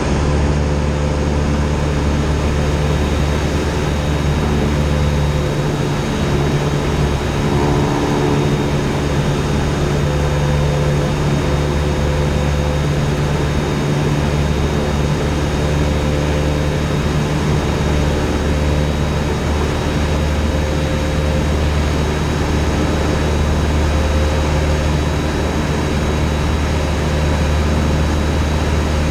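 Cessna 172 Skyhawk's piston engine and propeller running steadily, a low drone heard from inside the cabin.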